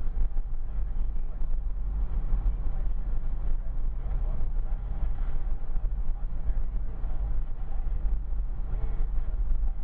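Car driving along a road, heard from inside the cabin: a steady low rumble of engine and road noise with some wind noise.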